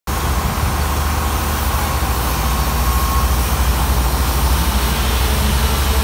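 Heavy diesel machinery, such as the pile-driving crane's engine, running steadily with a deep, even drone and no separate hammer blows.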